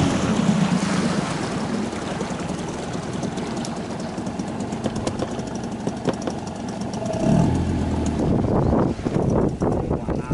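Boat motor running, with a steady rushing noise over it; its low engine tone drops away at the start, comes back briefly about seven seconds in, and gives way to irregular knocks near the end.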